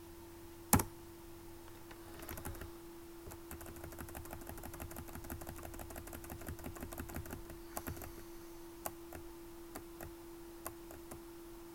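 Computer keyboard: one sharp keystroke about a second in, then a fast run of repeated key taps that thins out to occasional single taps near the end. A faint steady hum runs underneath.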